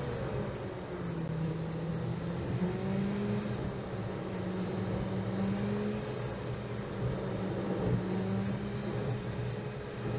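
Car engine and tyre road noise heard from inside the cabin, a steady drone whose pitch sags as the car slows and climbs again as it speeds back up.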